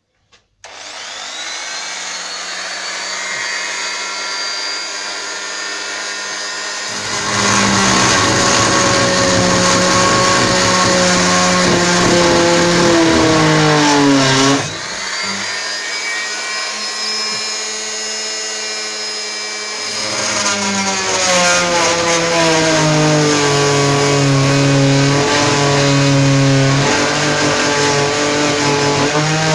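Small corded rotary tool spinning up to a high whine, then cutting off old screw heads that hold a window frame. It gets louder under load from about 7 seconds in, the pitch sagging as the cutter bites, eases off briefly near the middle, and cuts again from about 20 seconds with the pitch wavering.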